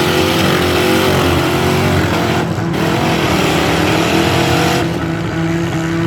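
Several street-stock demolition derby car engines running and revving loudly, their pitches rising and falling.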